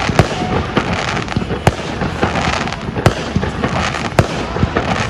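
Aerial fireworks display: shells bursting with sharp bangs every second or so over a continuous crackle of smaller reports.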